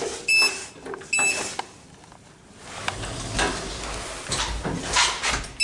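Two short high electronic beeps about a second apart, then scuffs and knocks over a low rumble.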